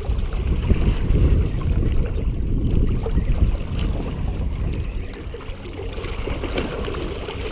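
Wind buffeting the microphone, strongest in the first few seconds and easing after about five, over small waves washing against jetty rocks.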